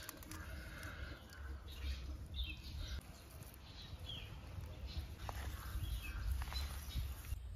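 Hands squeezing and mashing boiled potatoes with spices in a steel bowl, with a few short bird calls over a steady low rumble.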